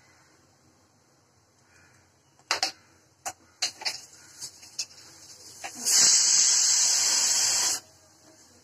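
Pressure cooker venting steam: a few short spits, then a loud steady hiss for about two seconds that cuts off sharply.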